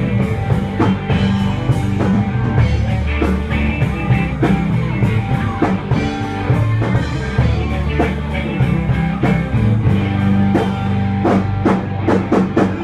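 Live rock band playing loudly, with electric guitar, bass and drum kit. A quick run of drum hits comes about a second before the end.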